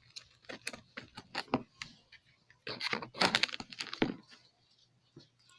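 Slime being stirred as activator is worked in, just starting to activate: irregular sticky clicks and crackles, busiest about halfway through, thinning out near the end.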